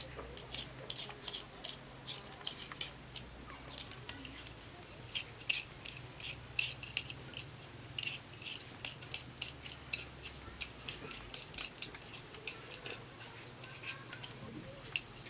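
Knife cutting potatoes: irregular sharp clicks and snips, thickest in the middle stretch.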